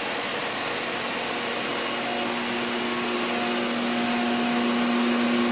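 Steady roar of a warship's engine-room machinery, with a few steady humming tones coming in about two seconds in.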